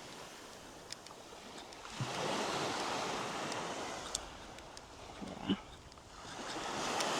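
Small waves washing in on a sandy shore. The surf swells about two seconds in and fades, then builds again near the end.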